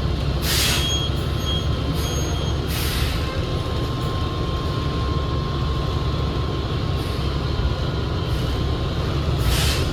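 Cabin noise inside a 2019 New Flyer XD60 diesel articulated bus: a steady low drivetrain rumble, with a faint steady whine in the middle, from a transmission the rider finds weird-sounding. Short hisses of air from the bus's air system break in about half a second in, twice around two to three seconds, and once near the end.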